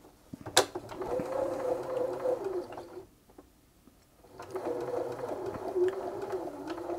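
Bernina B380 sewing machine's motor running unthreaded in two spells, with a sharp click just before the first and a pause of about a second and a half between them. The zigzag isn't working: the stitch width setting makes no difference.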